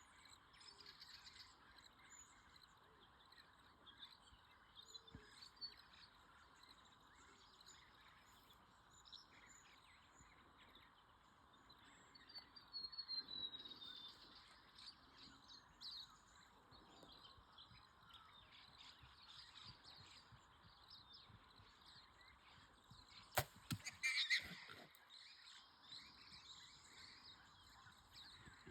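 Quiet bush with birds chirping, then about 23 seconds in a single sharp snap of a bow being shot, followed a second later by a short scuffling burst.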